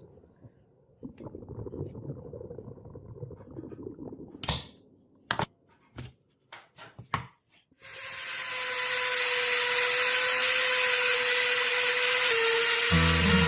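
A few sharp clicks and knocks of handling, then an electric grinder starts about eight seconds in and runs steadily with a high whine, its pitch dipping slightly near the end as it takes load. Music comes in at the very end.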